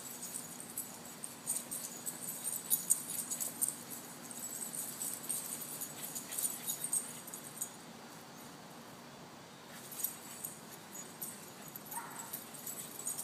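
A puppy at play, with irregular, rapid metallic jingling that dies down for about two seconds around eight seconds in, then picks up again.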